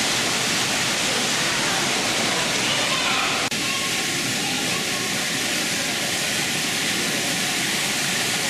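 Indoor waterfall, a steady rush of falling water, with a brief click about three and a half seconds in.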